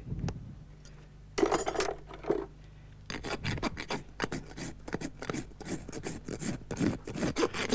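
A farrier's rasp filing a horse's hoof: one scrape, a pause, then a run of quick back-and-forth rasping strokes, the finishing of the hoof after the shoe has been fitted.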